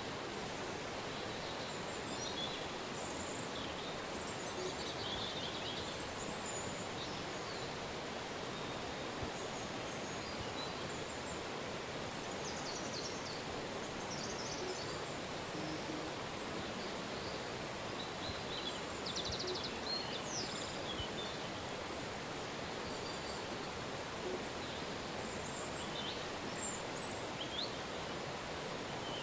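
Steady rush of a river flowing, with scattered short bird chirps and trills above it.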